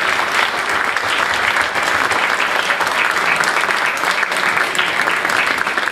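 Audience applauding: many hands clapping at once, dense and even.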